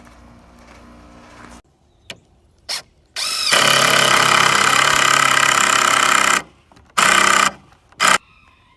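Power drill spinning up with a rising whine, running steadily for about three seconds, then two shorter trigger pulls.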